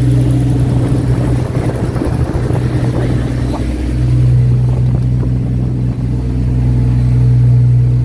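Fishing boat's engine running with a steady low drone. From about a second in, a rough irregular noise covers it for a few seconds.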